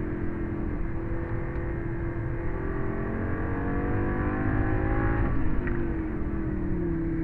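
Lamborghini engine heard from inside the cabin, pulling hard on track with its pitch climbing. The pitch drops sharply about five seconds in as it shifts up, then falls again near the end as the revs come down.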